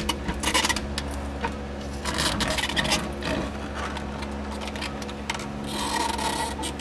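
Plastic fuel pump module scraping and rubbing against the rim of the fuel tank opening as it is worked out of the tank, with scattered small clicks and knocks and two longer stretches of scraping, about two seconds in and near the end.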